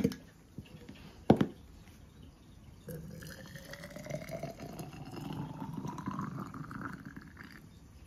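Two sharp knocks about a second apart, then hot water poured into a glass tea bottle for about five seconds, the pitch of the filling rising steadily as the bottle fills.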